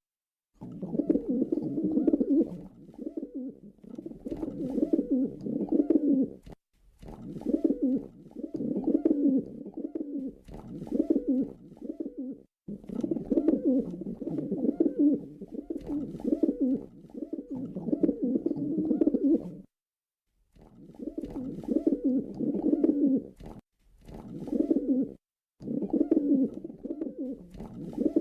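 Male pigeon cooing over and over in low, throaty phrases about every one to two seconds, with a few brief silent breaks between them.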